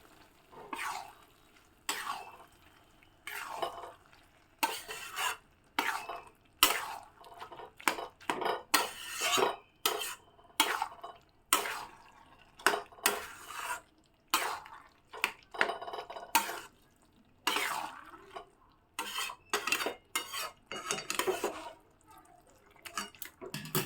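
A cooking spoon scraping and stirring round a pan, mixing a thick mixture of boiled mung dal and banana flower: a long run of short scrapes, roughly one a second, with brief pauses between strokes.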